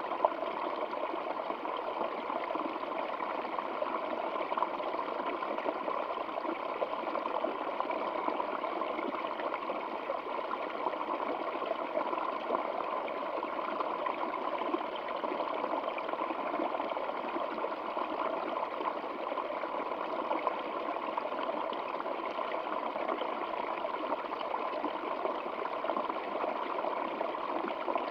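Stream water flowing steadily, an even rushing and trickling with no change in level.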